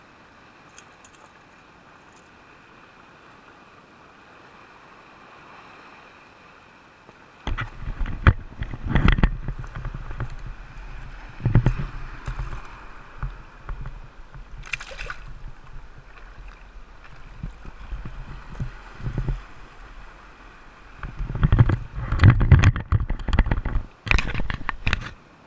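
Sea water sloshing and gurgling at the rocks, with loud rumbling, knocks and crackles from the camera being handled, starting about seven seconds in.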